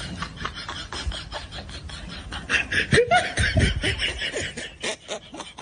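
Person laughing in quick, short bursts, loudest around the middle.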